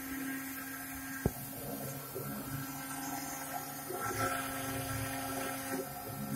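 CNC router spindle running steadily with a constant hum while its bit engraves lettering into a marble slab; the grinding of the cut grows louder about four seconds in. A single sharp click about a second in.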